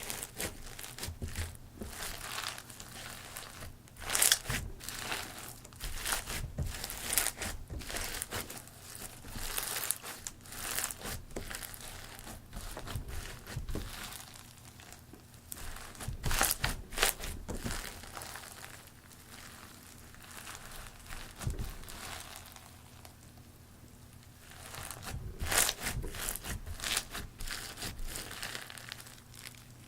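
Crunchy slime made of glossy slime mixed with foam beads, worked by hand and crackling and popping in bunches of quick clicks. The crackling swells and fades several times and is quieter for a few seconds past the middle.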